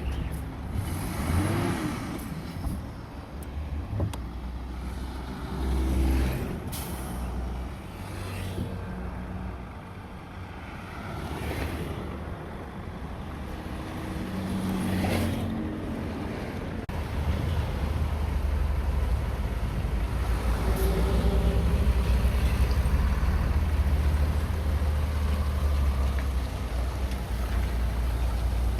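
Heavy diesel earthmoving machinery running with a deep engine rumble that grows louder and steadier about seventeen seconds in, with a few short hisses along the way.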